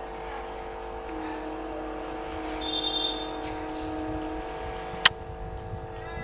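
Railway platform ambience with a steady hum. A long, steady tone sounds for about three seconds, starting about a second in, with a brief shrill, high sound in the middle of it. A single sharp click comes near the end.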